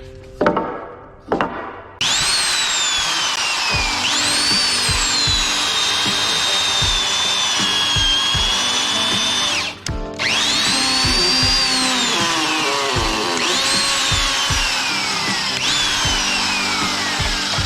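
Electric woodworking power tool cutting timber: its motor whine starts suddenly about two seconds in, rises as it spins up, then sags in pitch as it bites into the wood. It stops for a moment near the middle and starts again, rising and dropping several more times. A steady beat of background music runs underneath.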